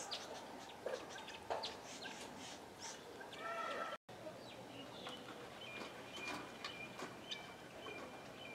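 Indian peafowl giving short, quiet clucks among higher chirps and ticks. The sound cuts out for an instant about four seconds in.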